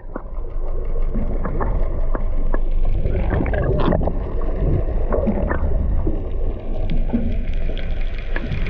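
Steady noise of a small boat at sea, water washing and wind, with scattered small knocks and clicks.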